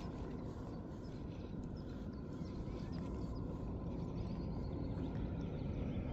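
Wind on the microphone, a steady low rumble, with a few faint high chirps over it.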